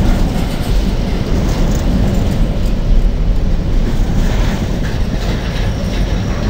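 Container wagons of a Class 66-hauled freight train rolling past close by: a steady, loud rumble of steel wheels on the rails.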